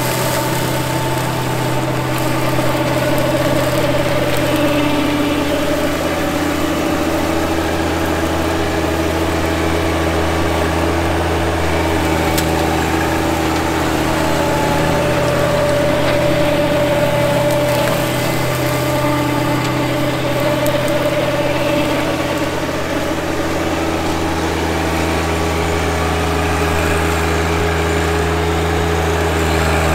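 John Deere 1025R compact tractor's three-cylinder diesel running steadily under load while it drives a Nova Tractor BCRL135 offset flail mower cutting tall grass. It makes a continuous drone with a steady higher hum over it, dipping slightly near the end.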